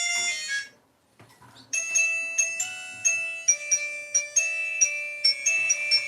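A mobile phone's polyphonic ringtone cuts off, and after about a second of near quiet with a faint tap, another ringtone starts: a bright, marimba-like melody of short repeated notes through the phone's small loudspeaker.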